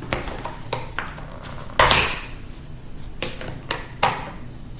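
Scattered metallic clinks and knocks from a 2006 MacBook being taken apart by hand, as tools and loose parts strike and rattle against the laptop's metal casing. About six separate knocks, the loudest about two seconds in.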